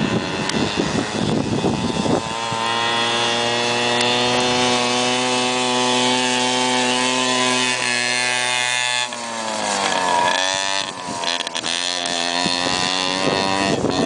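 Small 50cc mini ATV engine running at high revs: uneven for the first couple of seconds, then held at a steady pitch, dropping and picking back up about nine seconds in, and varying again near the end.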